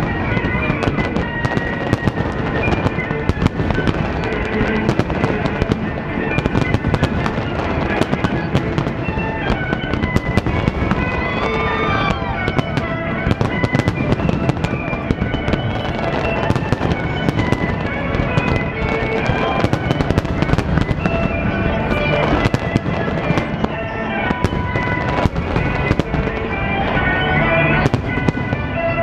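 A large fireworks display with shells bursting in rapid, continuous succession, over music playing throughout.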